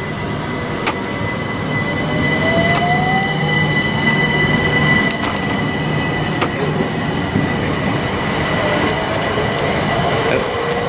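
Class 377 Electrostar electric multiple unit pulling away along the platform, with a steady high whine and wheel and rail rumble. Its traction motors give a rising whine for a few seconds as it gathers speed.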